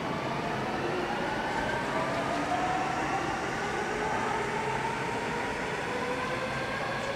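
Electric commuter train running along the platform, its motors whining in several tones that glide slowly in pitch over a steady rumble.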